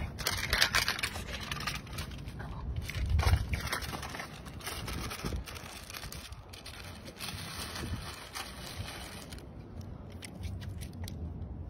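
Clear plastic bag crinkling and crackling as it is pulled open and handled, in irregular scratchy bursts that thin out near the end.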